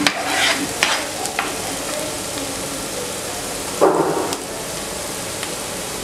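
Diced red onions sizzling in hot oil in a nonstick pan, with a steady hiss. A silicone spatula stirs and scrapes them in the first second or so, and there is a short louder noise about four seconds in.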